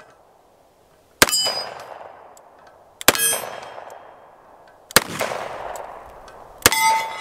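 Four .38 Special shots from an EAA Windicator 4-inch revolver, evenly spaced just under two seconds apart, each followed by the ringing clang of a hit steel target that fades away.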